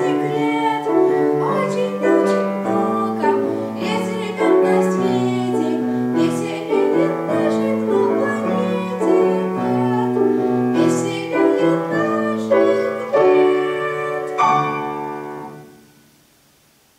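Grand piano playing the closing bars of a song accompaniment, ending on a final chord that dies away about fifteen seconds in.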